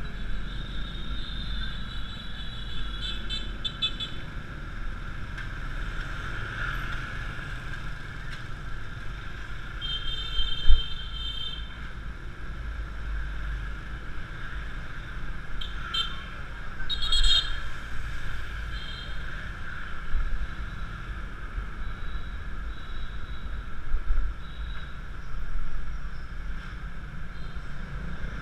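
Scooter ride through city motorbike traffic: steady wind rumble on the helmet-mounted camera over the Yamaha Mio Classico scooter running at cruising speed. Short high horn beeps from surrounding motorbikes sound at a few points, and there is one sharp bump about eleven seconds in.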